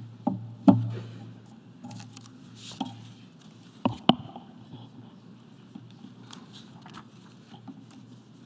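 Handling noise on the podium microphones as they are touched and adjusted: a few sharp thumps and knocks, the loudest under a second in and a pair about four seconds in, with lighter ticks between. A low steady hum runs underneath.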